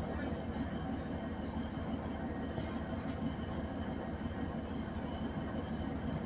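Steady rumble of a passenger train running along the line, heard from on board, with two short high-pitched squeaks in the first two seconds.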